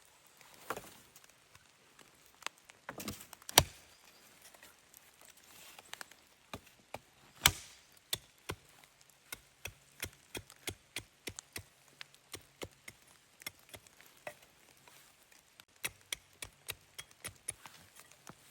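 Wood being chopped: two heavy, sharp blows a few seconds apart, then a long run of lighter, quicker strikes at about two or three a second.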